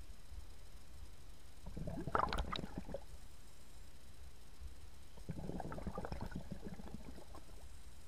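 Underwater recording of a scuba diver's exhaled bubbles streaming from the regulator twice, each a crackling burble lasting a second or two, about three and a half seconds apart, over a steady low rumble.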